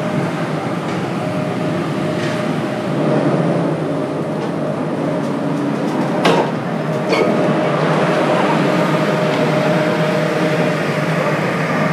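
City street noise: a steady traffic rumble with a constant hum through it. Two sharp knocks come about six and seven seconds in.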